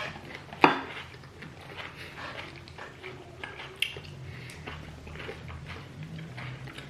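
Close-up eating sounds of banku with okra soup: wet chewing and lip-smacking with scattered small clicks. A sharp, loud click comes about half a second in, and a smaller one near four seconds.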